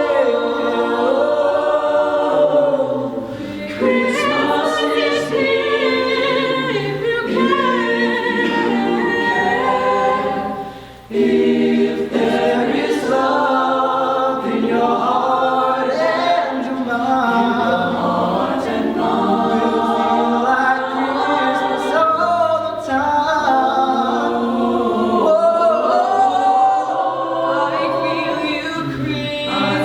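Madrigal choir singing unaccompanied in several parts, with a short break between phrases about eleven seconds in.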